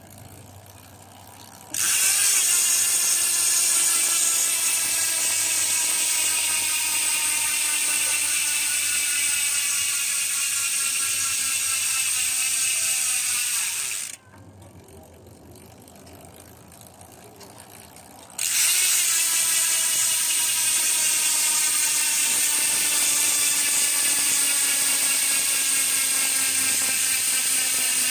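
Sword six-pawl bicycle rear hub freewheeling: the pawls ratchet in a loud, continuous buzz that slowly drops in pitch as the wheel coasts down. The buzz stops about 14 s in and starts again about four seconds later as the wheel is spun again.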